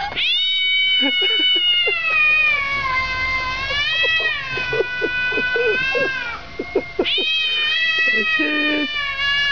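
A cat yowling in two long, drawn-out calls. The first lasts about six seconds and wavers down and back up in pitch. The second begins about seven seconds in.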